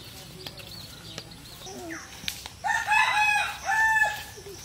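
A rooster crowing once, a loud call of several held notes starting about two and a half seconds in and lasting under two seconds.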